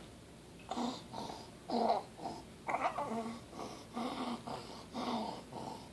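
A 6-month-old infant with croup breathing noisily with stridor: about six harsh, hoarse breaths, roughly one a second, separated by short quiet gaps.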